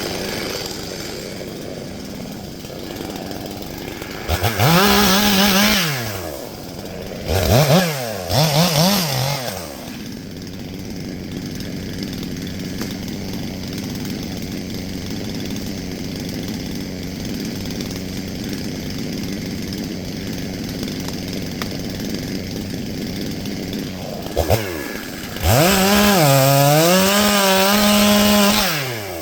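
Stihl MS 661 two-stroke chainsaw idling, with a short rev about four seconds in and two quick blips soon after. Near the end it is held at full throttle for about three seconds, dipping briefly in pitch before holding steady, then drops back toward idle.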